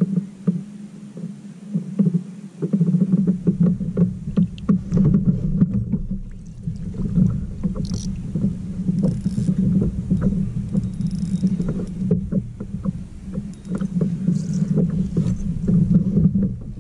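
Water lapping and slapping against a plastic fishing kayak's hull, picked up by the camera mounted on the boat as a busy low chop of small irregular knocks.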